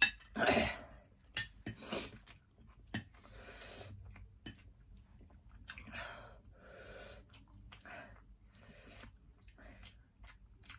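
Two people eating spicy kimchi noodles: chewing and slurping, with strong huffing breaths blown out through the mouth against the chilli heat, the loudest about half a second in. A few light clicks of forks on plates early on.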